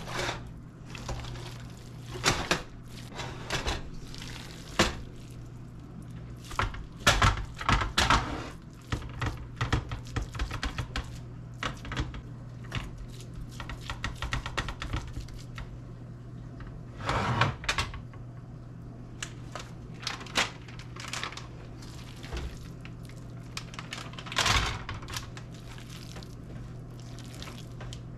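Kitchen handling sounds while meatloaf is packed into pans: irregular knocks, taps and clatters of pans and dishes, with louder clusters about a quarter of the way in, around the middle and near the end, over a steady low hum.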